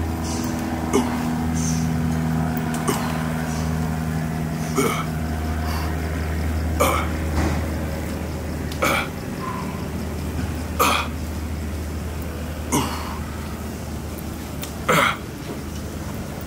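A man's short, forceful exhales or grunts, one roughly every two seconds in time with his reps on a seated dip machine, over a steady low hum.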